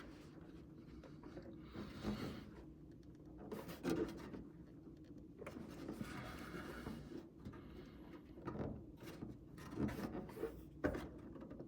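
Faint rubbing and scraping with a few light knocks and taps, from hand work on a car's front-end bodywork and spoiler.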